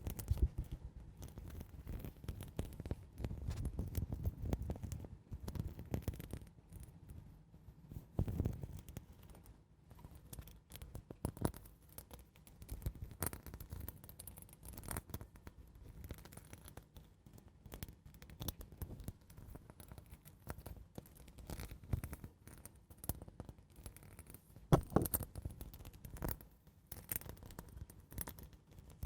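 Slow, gentle ASMR scratching and scraping close to the microphone: an irregular run of soft strokes and small ticks, with a few louder strokes about eight seconds in and again near twenty-five seconds.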